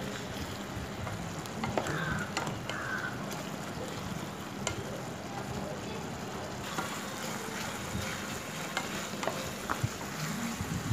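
Prawns with onion and tomato bubbling and sizzling in their own released liquid in a nonstick pan, with a spatula stirring and scraping and scattered light clicks. The prawns' water is cooking off as the mixture dries toward a fry.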